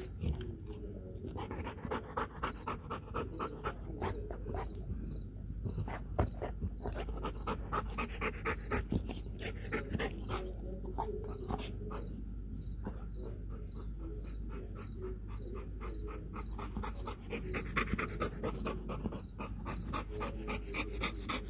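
Belgian Malinois panting hard and fast, about four breaths a second, winded from a workout.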